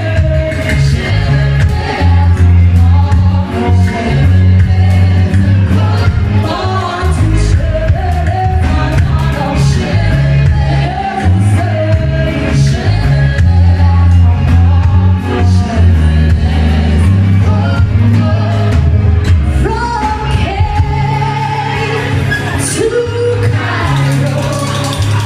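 Live band performance with a woman singing lead over electric guitar, bass, drums and backing vocals, with a strong bass line throughout.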